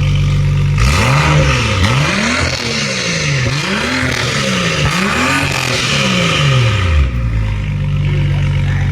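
BMW 535i's turbocharged N55 inline-six through a cheap valved aftermarket exhaust, idling, then revved in about five quick blips that rise and fall in pitch, settling back to idle near the end.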